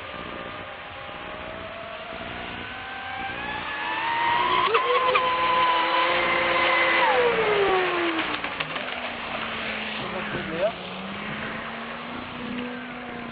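Brushless electric motor of an RC mono racing powerboat running at speed. Its whine climbs in pitch, holds loud and high for a few seconds, then drops sharply about seven seconds in and settles into a lower, wavering hum.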